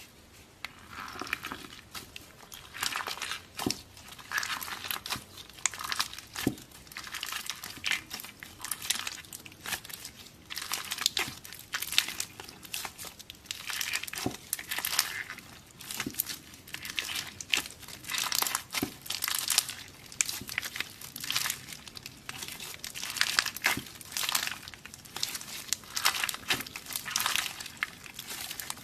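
Slime being squeezed and pressed by hand, giving a dense, irregular crackling and crinkling that comes in clusters.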